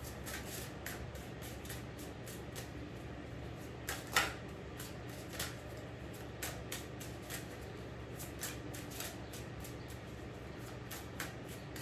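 Tarot cards being shuffled and handled: a run of light, irregular card clicks, with one louder tap about four seconds in.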